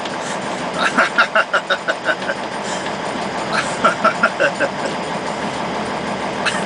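A truck's air horn, wired to the cab door so that opening the door sets it off, going off in runs of rapid short blasts: two runs of about six blasts a second, one about a second in and one near the middle.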